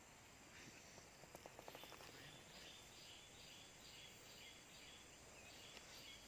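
Faint outdoor ambience with a bird giving short high chirps, repeated about twice a second through the second half. A brief run of quick faint clicks comes just before the chirps start.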